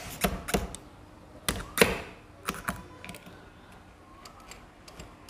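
Sharp metallic clicks and clinks of small engine parts and hand tools being handled during hand assembly of a motorcycle engine, about seven in the first three seconds, then only faint handling sounds.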